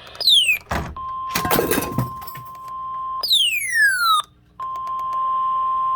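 Weather radio warning alarm: a steady single-pitch alert tone, held for about two seconds, then again after a short break. Each tone is preceded by a falling electronic sweep. A burst of static comes about a second in.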